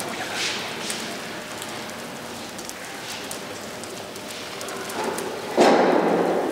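Smouldering burnt matchsticks of a wall artwork crackling and hissing faintly with scattered small ticks as the embers burn along the edges. Near the end a sudden, louder rush of noise comes in and lasts about a second.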